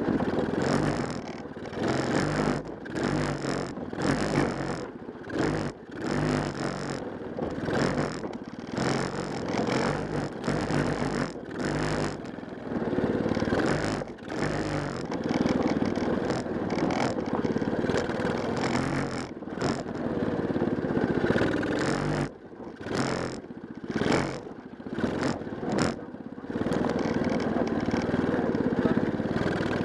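A 110cc mini Willys jeep's small engine running, with the revs rising and falling as the throttle is worked on and off again and again, giving many short dips in the sound.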